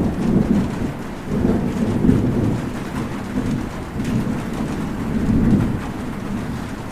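Steady rain with low thunder rolling beneath it. The rumble swells and fades a few times.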